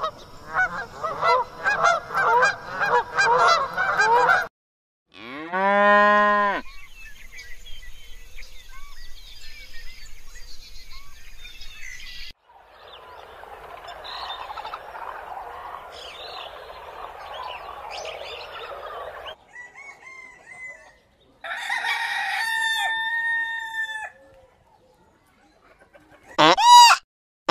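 A string of separate animal sounds. First an Egyptian goose honks rapidly and repeatedly for about four seconds, then comes one loud drawn-out animal call. Next is a long stretch of soft rustling and munching as a giraffe pulls hay, then a drawn-out fowl call, and near the end a chicken gives loud calls.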